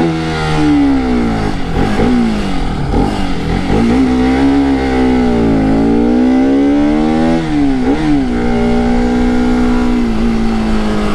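Motorcycle engine pulling away and accelerating, its pitch rising and dropping several times at the gear changes in the first eight seconds, then holding steady at cruising speed.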